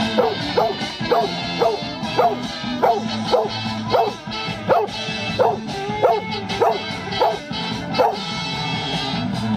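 Excited dogs yipping over and over, short falling-pitch barks about every two-thirds of a second, over a song playing.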